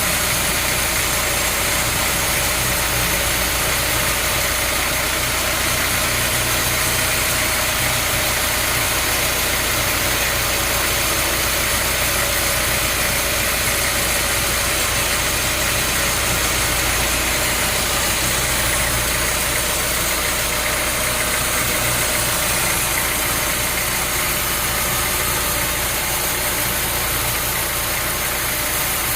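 Sawmill machinery with an engine running steadily at a constant speed, an even drone without changes.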